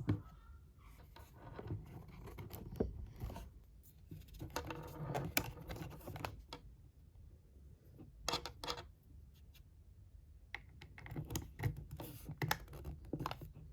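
Handling noise close to the microphone: irregular scratches, clicks and short rustles as objects are picked up and moved by hand, with busier clusters about 5 s in, about 8 s in, and in the last few seconds.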